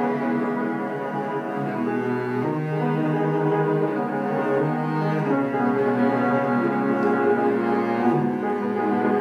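Cello and upright piano playing a cello sonata: long bowed cello notes that change pitch every few seconds, over piano accompaniment.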